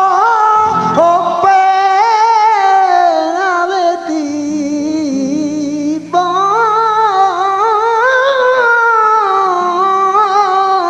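Male flamenco singer singing fandangos: long, heavily ornamented wordless lines with a wavering vibrato. Quieter flamenco guitar notes sound underneath.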